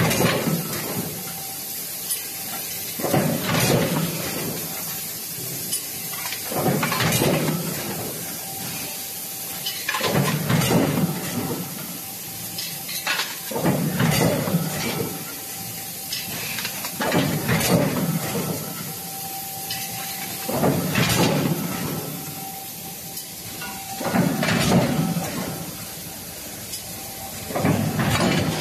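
Automatic billet forging line cycling: a burst of hissing and knocking about a second long, repeating about every three and a half seconds, over a steady faint tone.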